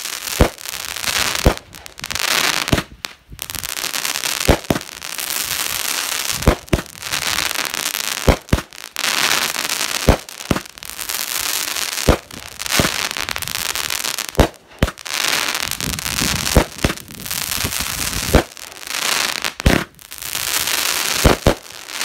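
200-gram consumer firework cake (Hammer Time, 16 shots) firing shot after shot, about one every two seconds. Each shot is a sharp thump at launch, followed by a second or so of hissing and crackling as the shell climbs and bursts. Really loud.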